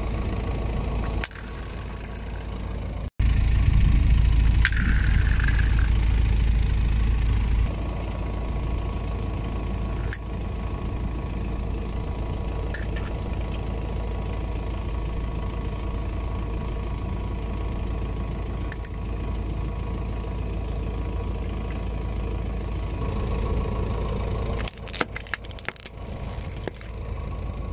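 Car engine idling with a low, steady hum, louder for a few seconds near the start. Near the end come a few sharp crackles as the tyre rolls slowly onto the small toys on the concrete.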